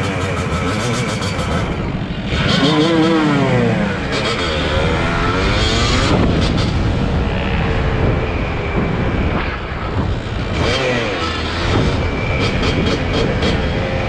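Several motorcycles and dirt bikes revving and riding by, engine pitch rising and falling again and again as the throttles are worked.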